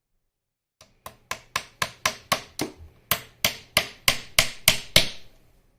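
Hammer tapping small nails into a wooden beehive frame: about fifteen quick strikes, three or four a second, growing louder, with a short break about halfway through.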